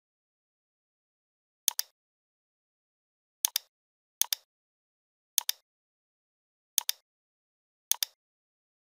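Computer mouse button clicks, six in all at uneven spacing, each a quick pair of ticks from the button's press and release.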